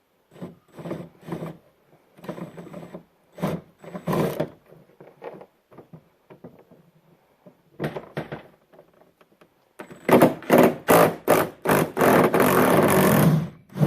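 Scrapes and knocks of hands and tools working inside the door at the handle opening, then a loud series of quick strikes running into about a second and a half of continuous rattling from a cordless impact wrench on an 8 mm socket and extension, backing out the handle bolt.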